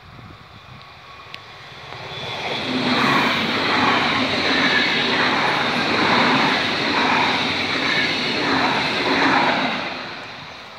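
Red DB regional electric multiple-unit train passing close by at a level crossing: its noise rises about two seconds in, holds for about seven seconds with a rhythmic clatter of wheels over the rails, then fades as it moves away.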